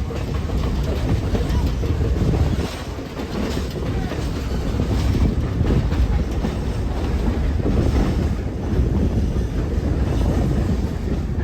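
Great Smoky Mountains Railroad passenger train heard from on board: a steady rumble of wheels running on the rails, with occasional clacks over the track.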